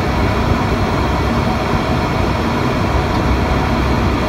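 Steady, loud cockpit noise of an ATR 72-600 on final approach: the drone of its Pratt & Whitney PW127 turboprop engines and propellers mixed with the rush of air over the airframe.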